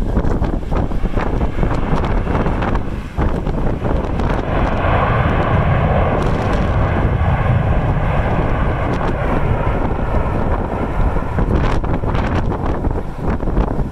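Strong wind buffeting the microphone. Under it, a passing jet aircraft's engine noise swells in the middle and fades away again.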